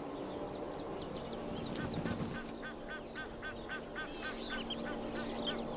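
Birds calling: a quick run of short, repeated chirps, about four a second, starting about two seconds in and lasting a couple of seconds, with fainter higher chirps around them over a low steady tone.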